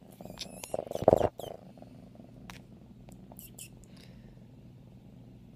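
Five-month-old F1 Savannah kitten purring steadily, a low continuous rumble. About a second in, a short burst of rustling and bumping close to the microphone as the kitten moves about.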